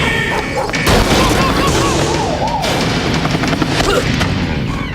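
Action promo soundtrack: dramatic music layered with sound effects, a heavy boom about a second in, and gunfire-like and crash effects.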